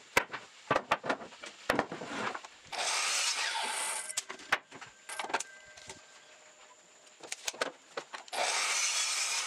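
Boards knocking together as they are handled, then two crosscuts with a Makita miter saw, each cut a steady burst of motor and blade noise about a second and a half long.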